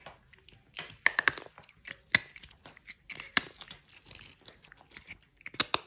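A cat biting into and chewing something crunchy close to the microphone: irregular sharp crunches, loudest just after a second in and again about two and three and a half seconds in, with another quick cluster near the end.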